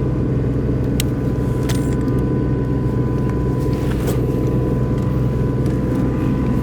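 Engine-driven welding machine running at a steady speed, a continuous low hum, with a few faint clicks.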